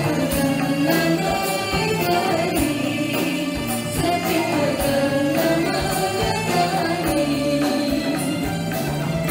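Live band playing a Malay pop-traditional song: a singer over drum kit, keyboards and percussion, with a steady beat.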